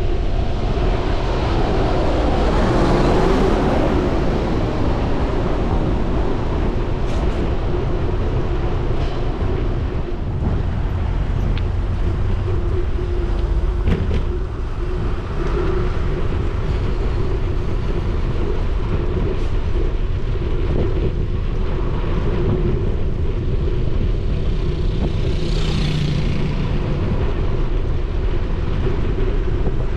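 Steady wind rumble on an action camera's microphone while cycling, mixed with traffic noise from the road alongside. Vehicles pass about three seconds in and again near the end.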